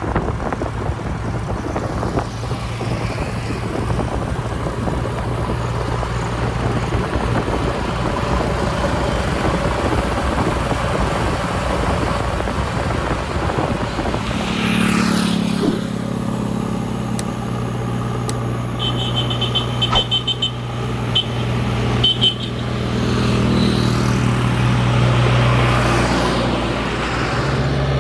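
Diesel engine of a JCB backhoe loader running steadily under working load, its note shifting about halfway through as the load changes. A short run of high beeps sounds about two-thirds of the way in.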